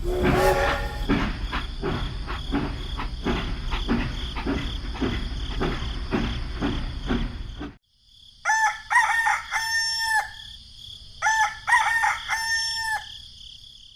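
A rhythmic low pulsing, about three beats a second, cuts off suddenly about eight seconds in. Then a rooster crows twice, each crow about two seconds long.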